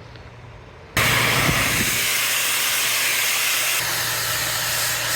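Pressure washer cutting in about a second in: the high-pressure water jet starts with a sudden loud, steady hiss as it blasts the concrete paving slabs. Its engine-driven pump keeps up a steady low hum underneath.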